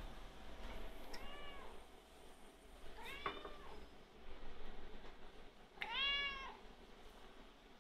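Domestic cats meowing: three meows about two and a half seconds apart, each rising then falling in pitch. The last and loudest comes from a long-haired white cat with its mouth wide open.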